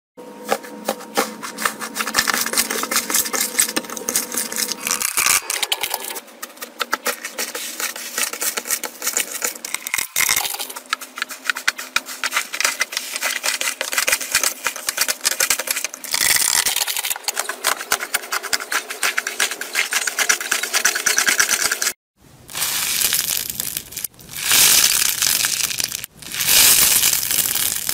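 Hands kneading and squeezing crunchy textured slime, giving dense crackling and popping, in several short clips that cut abruptly one to the next. Near the end a porous foam block is squeezed, giving a louder, harsher crackle.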